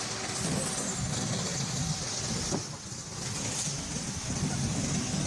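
Road vehicle noise running steadily, with one sharp crack about two and a half seconds in.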